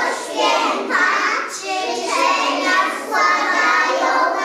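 A group of young children singing together in unison, without clear instrumental accompaniment.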